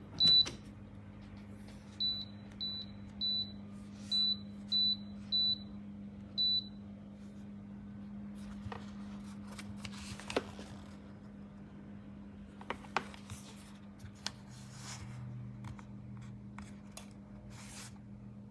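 Short high electronic beeps, eight of them at uneven spacing over the first seven seconds or so, typical of the touch buttons on an electric travel kettle's control panel being pressed, for example to step through its temperature settings. A steady low hum runs underneath, with a few sharp clicks later on.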